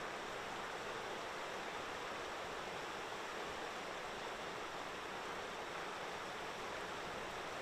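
Steady rush of flowing river water, an even noise without any distinct events.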